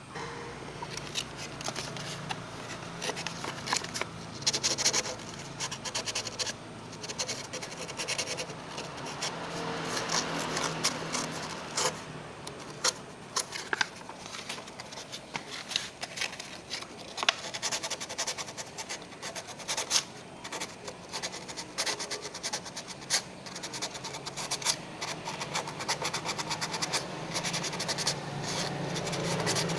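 Scratching and rubbing with many small clicks and taps, as of hands handling small hard parts or tools.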